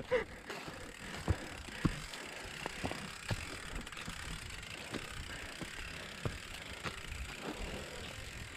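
Mountain bike rolling downhill on a dirt trail, its tyres on the ground giving a steady rushing noise with scattered sharp knocks and rattles over bumps.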